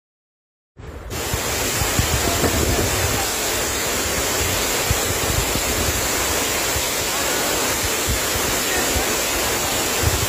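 A waterfall in full flood: a steady, heavy rush of falling water, with wind buffeting the microphone. It starts suddenly about a second in, after silence.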